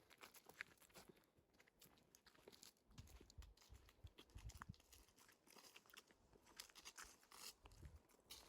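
Near silence with faint, scattered crunches and clicks, a little busier in the middle and near the end.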